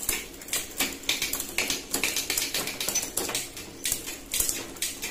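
Bicycle drivetrain turning on a stand: chain running over a just-installed 7-speed freewheel and through a Shimano Altus rear derailleur, with sharp irregular clicks about three a second.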